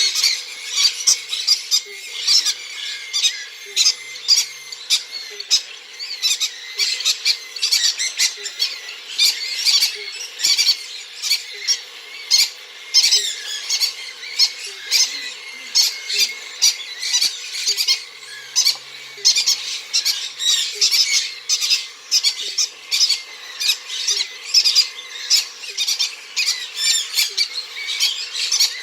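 Three-week-old cockatiel chicks giving rapid, raspy food-begging calls, many a second without a break, as they are hand-fed.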